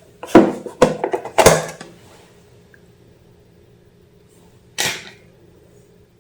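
A quick run of sharp knocks and clicks, as of small hard objects being handled and set down, in the first two seconds, then a single knock about five seconds in, over a faint steady hum.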